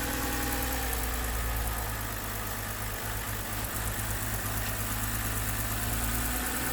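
2007 BMW X3 engine idling just after starting, running rough with a steady low rumble. The roughness comes from a cylinder 1 misfire, later traced to a faulty ignition coil.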